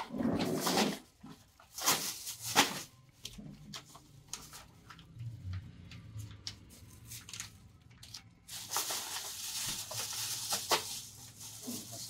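Rustling and knocking of medicine boxes and packaging being handled on a counter: a few short rustles and sharp knocks at first, then a couple of seconds of continuous rustling about three-quarters of the way through.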